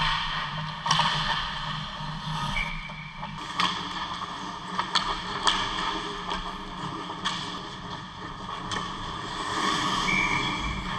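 Ice hockey play close to the net: skate blades scraping and carving on the ice, with scattered sharp clacks of sticks and puck. A steady low hum runs underneath.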